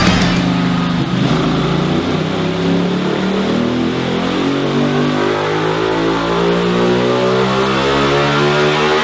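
Ducati 1199 Panigale's Superquadro V-twin engine doing a dyno pull under load, its revs climbing steadily and smoothly.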